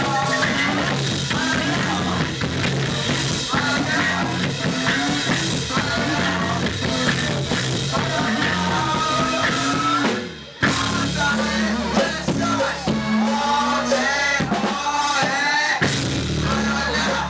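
Live rock band playing with a singer over drums, bass and guitar. The band stops for a moment about ten seconds in, then comes straight back in.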